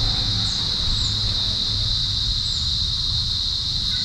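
Steady high-pitched drone of insects, crickets by its character, with short high chirps about once a second over it.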